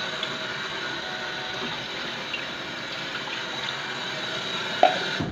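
Water running steadily into a wok to soak the caramelized sugar stuck to it, with a knock near the end; the flow cuts off suddenly.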